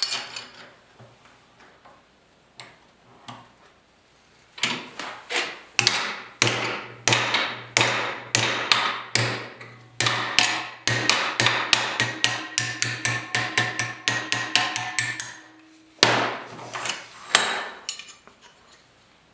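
Hammer blows on a small steel bracket being bent into shape. A few light taps, then a long run of ringing strikes that quicken into rapid taps, a short pause, and a few last hard blows.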